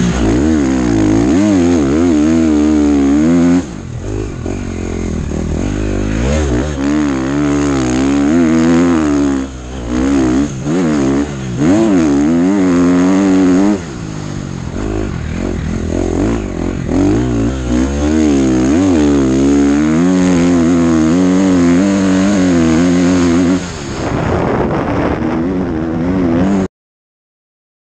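KTM 450 motocross bike's engine, heard from on board, revving hard with its pitch climbing and falling over and over as the rider works the throttle and gears through the sand, with several brief throttle-offs where it drops back. It cuts off suddenly near the end.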